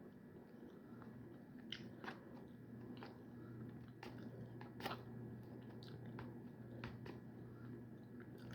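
A person chewing a mouthful of spicy chicken pasta, with scattered small wet clicks and smacks from the mouth. The loudest click comes about halfway through. A faint, steady low hum runs underneath from about a second in.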